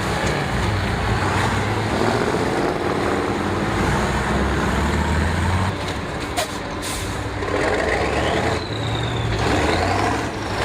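Heavy off-road truck engine running under load, its pitch rising and falling as it works, with two short sharp noises about six and a half seconds in and a high squeal that rises and falls near the end.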